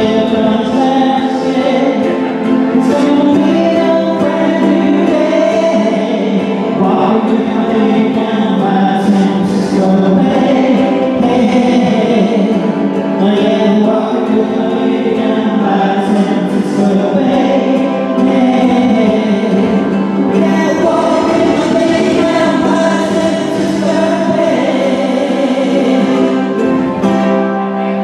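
A small band performing a song live: several voices singing together over acoustic guitar.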